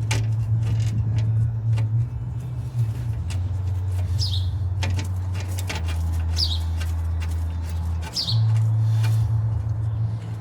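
A low steady rumble that shifts level in steps, with a small bird giving a short falling chirp a few times and scattered light clicks.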